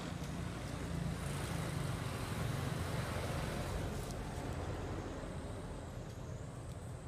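Motor vehicle passing: a low rumble with tyre hiss that swells over the first few seconds and then fades.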